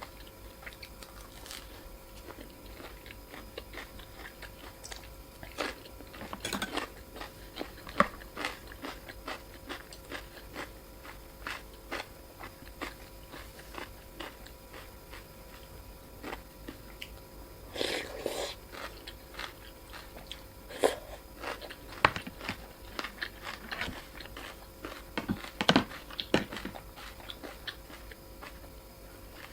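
Close-up eating sounds of a person eating a bowl of Thai boat noodle soup: chewing and biting, with many small scattered clicks and a few louder, longer noises about six, eighteen and twenty-six seconds in.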